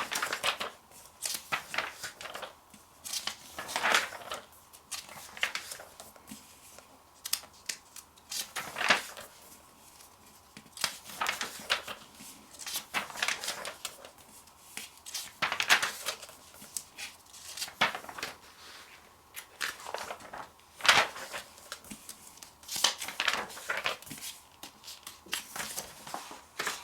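Magazine pages being turned by hand one after another, each page turn a short papery swish and rustle, coming every couple of seconds at an uneven pace.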